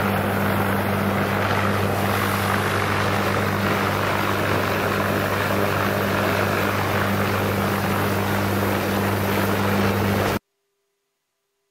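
UH-1Y Huey twin-turbine helicopter running on the ground with its rotors turning: loud, steady rotor and turbine noise over a low, even hum. It cuts off abruptly near the end, leaving near silence with a faint thin tone.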